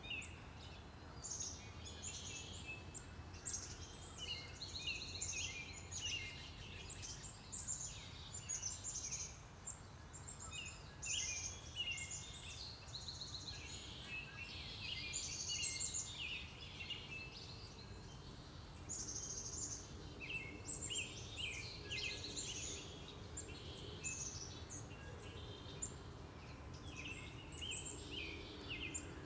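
A chorus of many songbirds singing and calling at once, with short overlapping chirps and trills throughout, over a faint steady low rumble of background noise.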